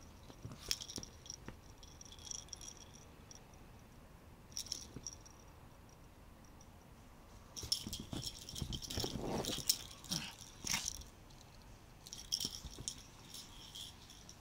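A small bell jingling in short bursts as a chihuahua plays with a soft fabric ball toy. The jingling is busiest and loudest from about eight to eleven seconds in, mixed with scuffling on the sofa.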